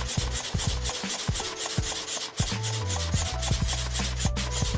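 Advanced Elements hand pump worked in repeated strokes, a scraping rush of air as it inflates an inflatable kayak's main air chamber. Background music with held bass notes and a simple stepping melody plays under it.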